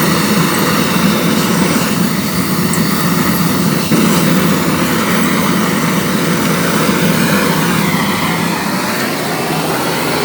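Home-made oil-fired aluminium melting furnace burning steadily with an air blast, a loud continuous rushing noise heaviest at the low end. The level steps up briefly about four seconds in.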